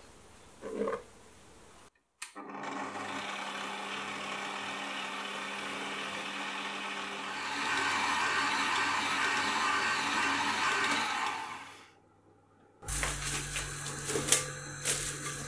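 Electric stand mixer running steadily with a dough hook kneading pizza dough in a glass bowl. It gets louder about halfway through and stops just before the end. Then come a few sharp clicks and rustles as the bowl is handled.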